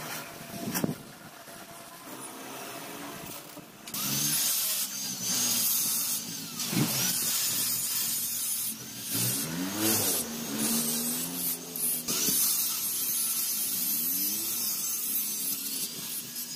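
Metalworking noise: a harsh hiss starts about four seconds in and runs with brief breaks, over fainter pitched sounds that slide up and down.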